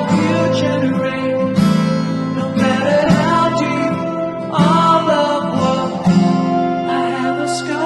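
Background music: strummed acoustic guitar with sustained notes and chord changes, possibly with a soft vocal.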